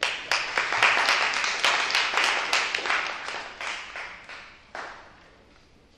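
Audience applauding: many hands clapping at once, thinning out and fading over about four seconds, with a last lone clap near the end.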